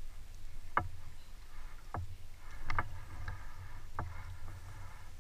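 Oars knocking in their oarlocks on a drift boat, a sharp knock roughly every second, over a low rumble of river water and wind.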